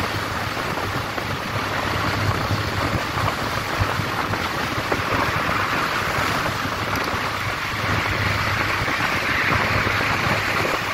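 Steady wind rush on the microphone of a moving Honda motorcycle at road speed, over a low, even engine hum.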